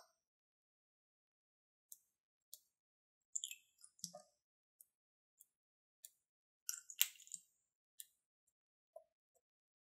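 Lip gloss applicator wand dabbing onto glossy slime: faint, scattered sticky clicks and little squishes, about a dozen, in two small clusters about three and a half and seven seconds in.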